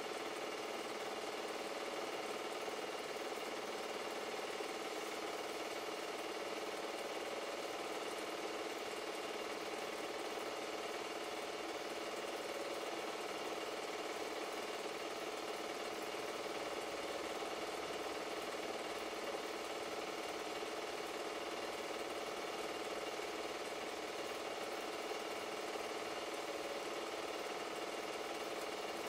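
Super 8 film projector running steadily, the mechanical sound of its motor and film transport.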